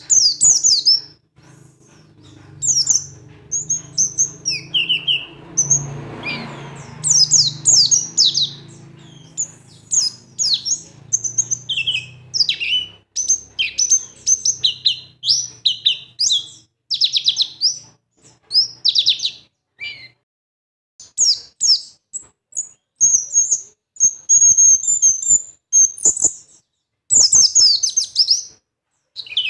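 A small bird chirping and twittering in quick, high runs of short notes, with brief pauses between runs. A low hum sits under the chirping for the first two-thirds, swelling about six seconds in and stopping at around twenty seconds.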